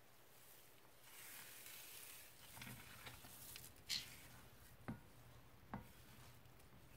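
Crunchy slime loaded with foam beads being stirred and folded with a spatula: a quiet crackling, squishy hiss, then a few sharp clicks and pops, the loudest about four seconds in.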